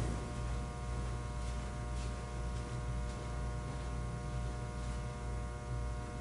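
Steady electrical mains hum and buzz: a low hum with a set of constant higher tones, unchanging throughout.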